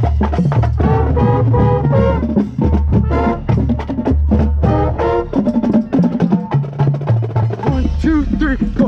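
High school marching band playing its field show: brass with a drumline, many quick drum strikes over held brass notes, heard close up from within the band.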